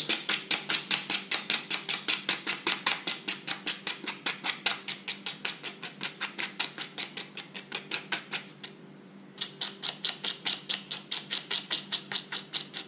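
Sandpaper rubbed in quick, even strokes, about five a second, over the end of a fishing leader to round off its tip, with a short pause a little past the middle.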